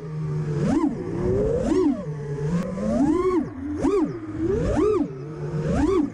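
FPV freestyle quadcopter's brushless motors, revving up and easing off about once a second as the throttle is punched and cut, with a rising and falling whine.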